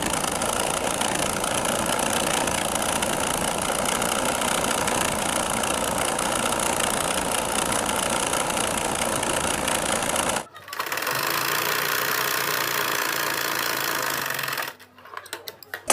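Singer sewing machine running at speed, stitching a skirt hem. It stops briefly about ten and a half seconds in, runs again, then stops near the end, followed by a few light clicks.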